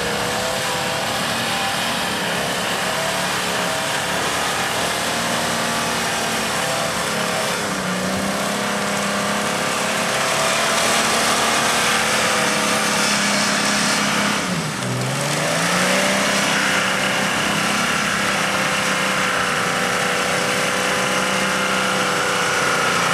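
Jeep Grand Cherokee ZJ's engine running hard under load as it works through mud, its revs held steady. About two-thirds of the way through the revs drop sharply and climb back up.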